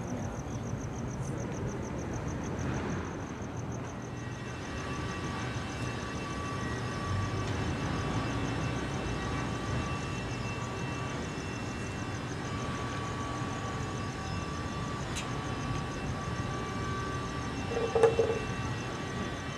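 Night ambience: a steady low rumble of distant traffic under a high, even, pulsing cricket trill. A short knock stands out about eighteen seconds in.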